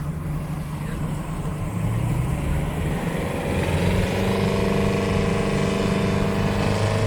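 Water taxi's boat engine running under way with a rush of wind and water. The engine note grows louder and clearer about three seconds in.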